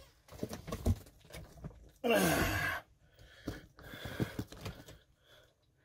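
A few faint clicks and knocks from small objects being handled. About two seconds in comes a person's breathy sigh, falling in pitch and under a second long.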